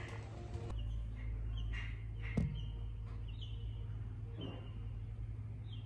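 Birds chirping faintly, short high calls scattered every second or so, over a steady low hum, with one sharp click about two and a half seconds in.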